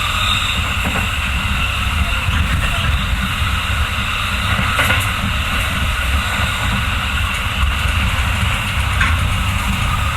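Running noise inside a Takasaki Line commuter train's driving trailer car: a steady rumble of steel wheels on the rails with a constant hiss, broken by a few faint clicks.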